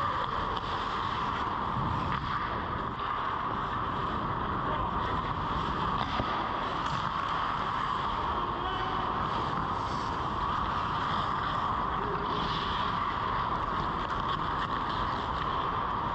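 Steady drone of an indoor ice rink, with faint scrapes and clicks from hockey skates and sticks on the ice now and then.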